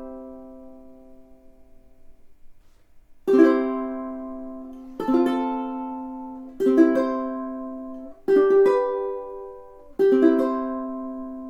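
Millar all-solid Hawaiian koa large-body tenor ukulele strummed. A chord fades out over the first two seconds; after a short pause, five chords are strummed about every second and a half to two seconds, each left to ring.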